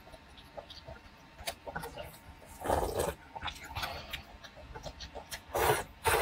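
Close-miked eating: wet chewing and small mouth clicks, a louder burst of mouth noise about three seconds in, then a slurp of rice noodles near the end.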